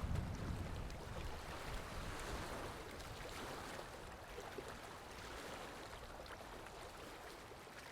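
Small waves lapping at a lake shore, with a light wind, slowly fading down.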